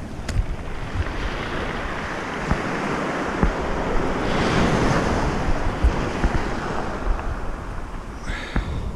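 Surf washing on the shore, with a wave building up and breaking about halfway through. Wind buffets the microphone with low thumps.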